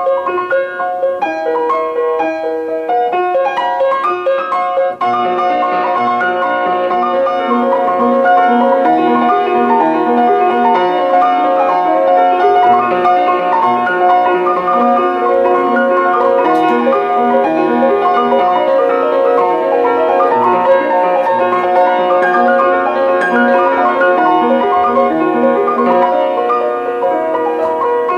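Instrumental music led by piano, with many overlapping held notes; it grows fuller and louder about five seconds in.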